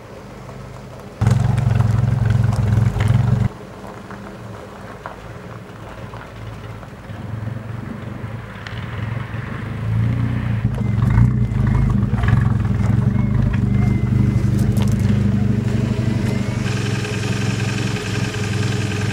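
Car engine running with a low, steady hum. It gets suddenly louder about a second in and drops back sharply a couple of seconds later, then swells again about halfway through and stays loud, with higher steady tones joining near the end.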